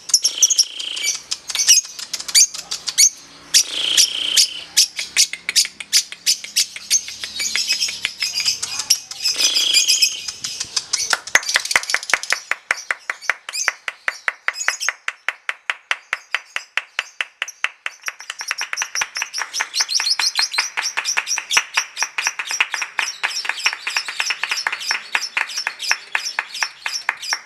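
Lovebird's long 'ngekek': an unbroken chatter of short, sharp chirps, many a second. It is harsher and more varied for the first ten seconds or so, then settles into an even, fast run.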